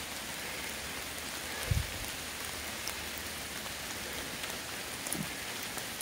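Steady rain falling, an even hiss, with a brief low thump a little under two seconds in.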